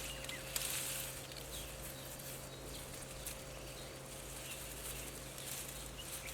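Quiet outdoor ambience: a steady hiss with a few faint, short bird-like chirps scattered through it.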